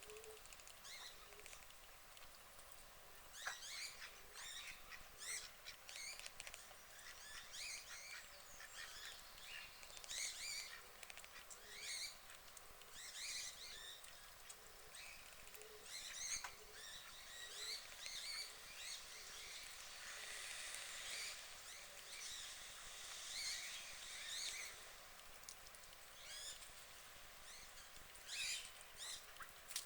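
Birds calling faintly around a pond: many short, high chirps and twitters scattered throughout, over a faint run of soft, low duck calls about once a second.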